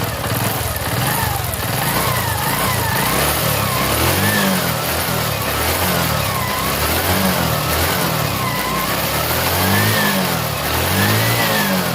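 TVS XL100 BS6 moped's small single-cylinder four-stroke engine being revved up and down repeatedly, its pitch rising and falling about every second and a half. It runs without timing-chain rattle, the chain tensioner spring having just been re-set.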